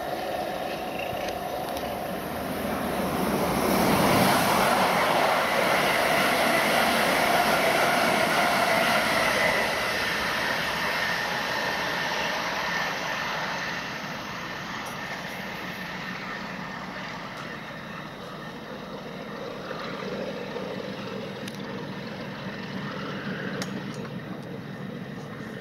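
Train noise on the main line: the rumble swells about four seconds in, stays loud until about ten seconds, then eases and fades. This fits a passenger train passing on the adjacent line while the LNER A1 4-6-2 steam locomotive Tornado and its support coach run away into the distance.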